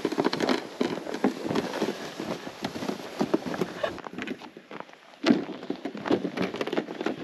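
Footsteps crunching in snow: a dense run of crunches, then after about four seconds slower, spaced steps with one louder crunch.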